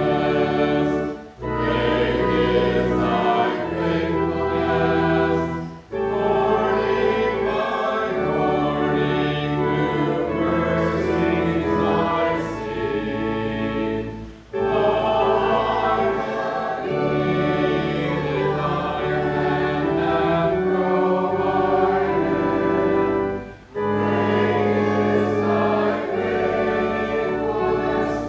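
Choir singing a hymn in long held chords over low sustained notes, phrase by phrase, with short breaks between lines.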